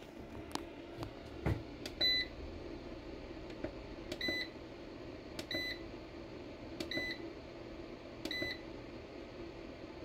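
MPP Solar LV2424 inverter's front-panel buttons being pressed to page through its display, each press giving a click and a short, high beep: five beeps about a second and a half apart, after a few bare clicks. A steady low hum runs underneath.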